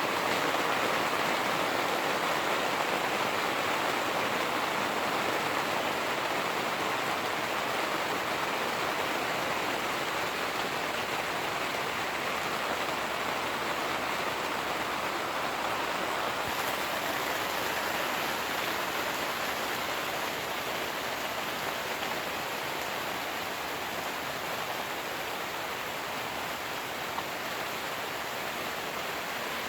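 Rain falling steadily on a Cabela's Big Horn 3 tent, a dense even hiss that eases slightly over the half minute.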